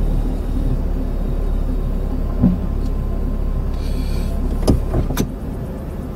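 Steady low hum of an idling car, picked up by a dashcam, with a short hiss about four seconds in and a few sharp clicks and knocks near the end.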